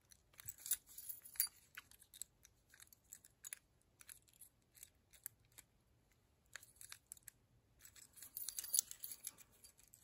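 Faint, irregular light clicks and metal scraping of a thin steel decoder knife worked between the dial wheels of a Master Lock M176 combination padlock as the lock is handled, with a pause in the middle and a denser run of scratching near the end.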